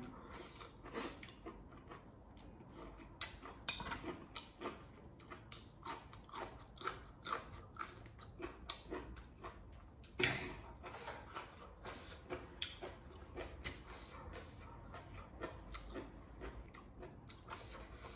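Close-up chewing of crisp raw vegetables dipped in spicy salad sauce: an irregular run of small wet crunches and mouth clicks, a few a second, with a louder crunch about ten seconds in.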